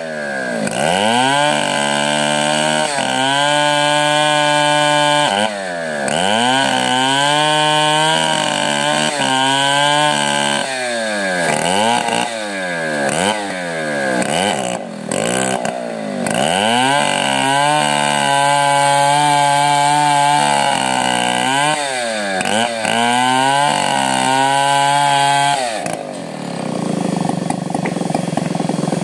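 Chainsaw cutting teak wood, its engine revving up to full throttle and holding for a few seconds, then dropping back, over and over. There are several short blips of throttle in the middle, and it falls back to a low, rough run near the end.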